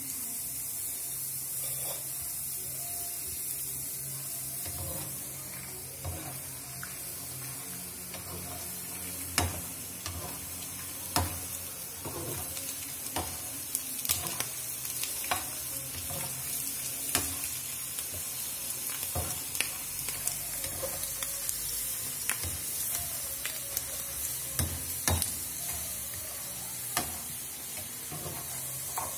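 Fryums sizzling as they puff in a hot pan, a steady hiss, with scattered sharp knocks of the stirring utensil against the pan.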